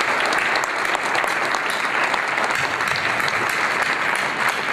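A large audience applauding, a dense, steady clatter of many hands clapping at once.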